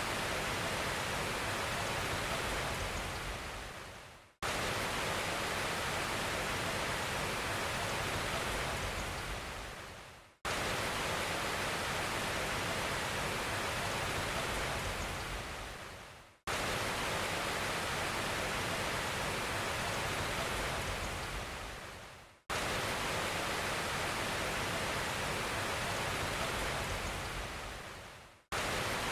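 Steady rushing hiss, like rain or falling water, repeating in identical stretches about six seconds long. Each stretch starts abruptly, fades out and cuts to silence before the next begins, so it sounds like a short noise recording played on a loop.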